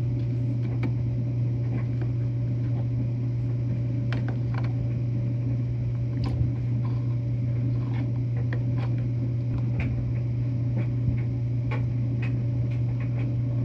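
A steady low mechanical hum runs throughout, with scattered small clicks and taps as the Samsung washer's plastic drain filter cap is twisted loose and pulled out.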